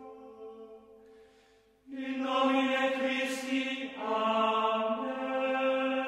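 Background music of long-held, chant-like tones. It fades almost to nothing about a second in, swells back at about two seconds, and shifts to a new chord about four seconds in.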